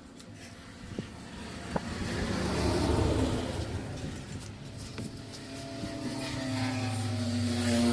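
A motor vehicle engine heard rising and falling twice, the second time with a clear pitched engine note that grows louder toward the end.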